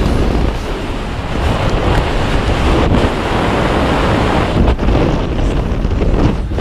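Wind rushing over the camera's microphone during a tandem descent under an open parachute canopy: a loud, steady rush with a few momentary drops.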